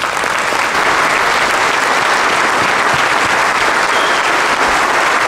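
Large audience applauding steadily, many hands clapping at once, welcoming speakers to the stage.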